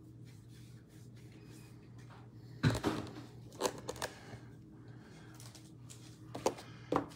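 A hand handling the shrink-wrapped cardboard blaster boxes of baseball cards: a few short knocks and rustles, the loudest about two and a half seconds in, over a steady low hum.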